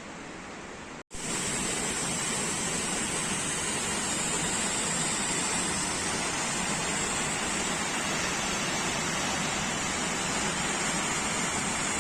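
Steady rushing of water, a stream or waterfall nearby. About a second in the sound drops out for an instant and comes back louder.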